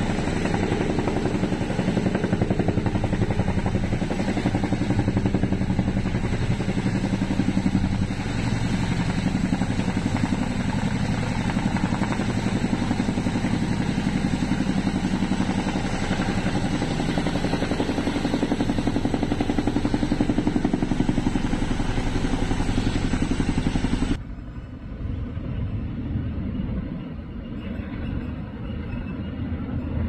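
Tandem-rotor Boeing CH-47 Chinook helicopter hovering low, its rotors beating rapidly in a loud, steady din. About 24 seconds in, the sound drops sharply to a fainter, more distant rotor noise.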